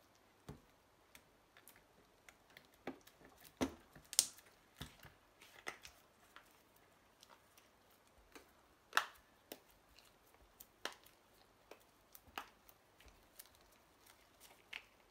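Faint, irregular small clicks and taps as a replacement iPhone 11 screen is pressed down and seated into the phone's frame, a few louder snaps among them.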